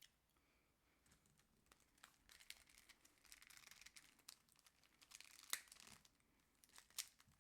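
Faint clicking and rustling of Rubik's cube plastic pieces being handled and pried at, with a sharper click about five and a half seconds in.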